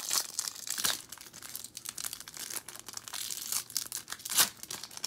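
Foil trading-card pack wrappers crinkling and rustling as cards are handled: a run of quick, sharp crackles, the loudest about four seconds in.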